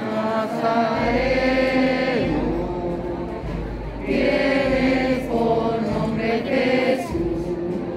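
Group of voices singing a slow devotional hymn, with long held notes in phrases and short breaks between phrases.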